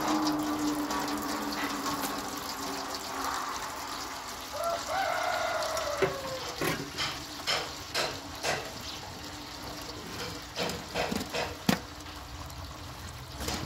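Boiled beeswax comb residue and hot water being ladled into a jute sack over a bucket: liquid splashing, pouring and dripping. In the second half come a string of sharp knocks and clicks.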